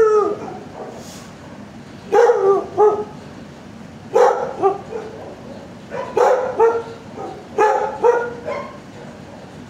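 A dog barking in short runs of two or three loud barks, about one run every two seconds.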